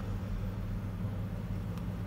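Steady low mechanical hum, with one faint tick near the end.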